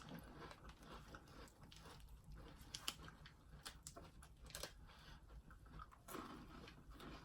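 Faint chewing and crunching of a rolled wafer stick with creamy chocolate filling, a scatter of small crisp crackles as it is bitten and chewed.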